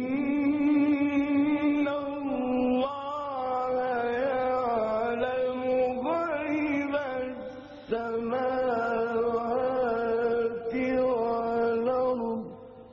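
A male reciter's voice in melodic Quranic recitation (tajweed), in two long phrases with a short breath between them about eight seconds in. The voice holds notes and winds through ornamented turns.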